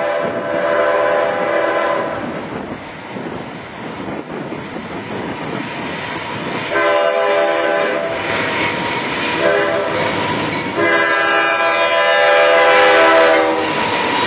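Approaching freight locomotive's air horn sounding the grade-crossing signal: a long blast, then after a pause a long, a short and a final long blast. Train noise builds under it as the locomotive reaches the crossing near the end.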